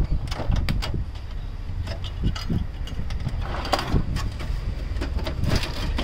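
Scattered clicks and knocks of the plastic casing and parts of an HP LaserJet Pro MFP M125a printer being handled, over a steady low rumble.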